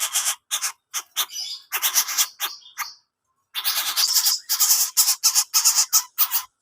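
A coucal (butbut) giving harsh, rasping calls in quick runs of short notes, with a pause of about half a second a little after halfway.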